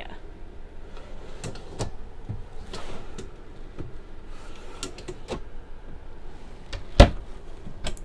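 Wooden pull-out pantry drawers sliding in and out on metal ball-bearing slides, with scattered light clicks and knocks. About seven seconds in comes a single sharp knock, the loudest sound, as the cabinet is shut.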